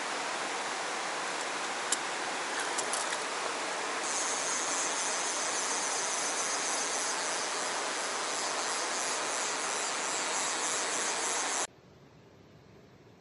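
Mountain stream water rushing steadily over rocks, with a higher hiss joining about four seconds in. The sound cuts off suddenly near the end, leaving only a faint hiss.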